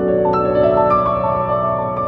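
Background music: slow, gentle piano playing a melody of single notes over held chords.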